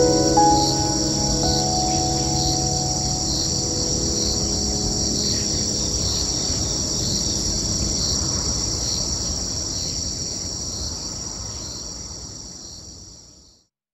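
A steady, high-pitched chorus of chirring insects with an even pulse, over a low background rumble. A few ringing music notes die away at the very start, and the whole sound fades out near the end.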